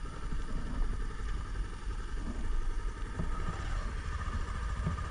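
Motorcycle running while being ridden, heard on the rider's camera as a low, uneven rumble.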